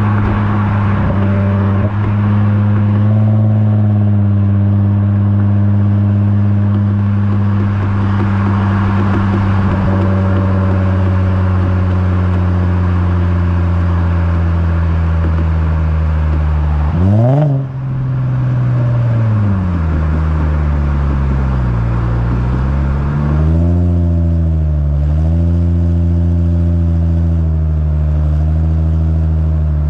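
Lexus IS350's 3.5-litre V6 heard at the tailpipe through an HKS Hi Power catback exhaust and Invidia midpipe, holding steady revs while driving. About halfway through the revs jump briefly, then fall away over a few seconds; the note then holds with small rises and dips, and a rev climb starts at the very end.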